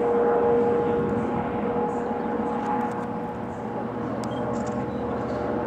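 Red Meitetsu Seto Line 6000-series electric train approaching round a curve: a steady rumble with a held hum over it.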